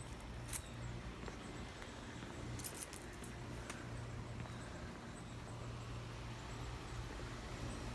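2007 Carrier heat pump outdoor unit running with a steady low hum, its fan quiet, which the owner puts down to the fan bearing having been oiled at the service. A few light clicks come about half a second in and again near three seconds.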